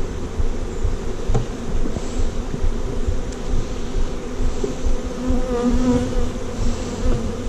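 Many honeybees buzzing in a steady, loud hum that wavers a little in pitch partway through, as they fly around the open hive after their frames have been moved in.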